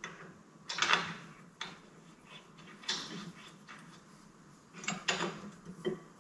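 A handful of short metallic clicks and knocks, spaced unevenly, as small parts of a filter head are handled and fitted together at a bench vise.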